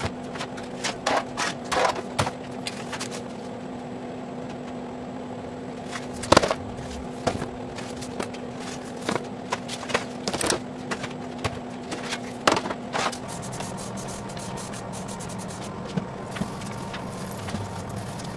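Aluminium sheet pans scraping along the rails of a metal bakery rack and clanking as they are pulled out and handled, with sharp, irregular knocks. A steady low hum runs underneath and stops about two-thirds of the way through.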